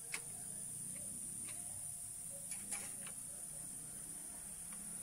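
A few scattered light clicks and taps from hands working around a car's front brake caliper, over a steady low hum and a faint high whine.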